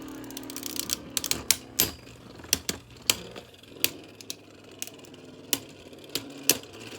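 Two Beyblade spinning tops winding down in a stadium. A steady whir fades out in the first second, then come irregular sharp clacks, a dense cluster followed by scattered single knocks, as the slowing tops collide. The battle is ending in a spin finish.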